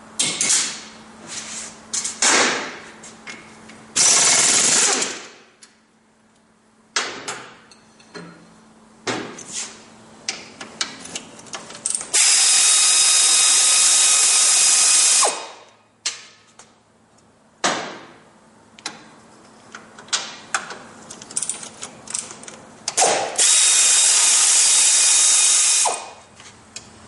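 Handheld power tool running in three bursts: a short one about four seconds in, and two longer ones of about three seconds each, in the middle and near the end. Between them come short clinks, scrapes and knocks of hand tools and parts.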